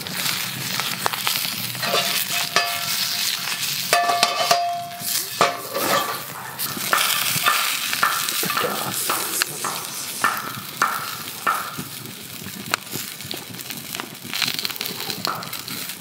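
Sausages sizzling in a skillet over a fire, with sharp clicks and a few short metallic clinks as they are turned with chopsticks against the pan.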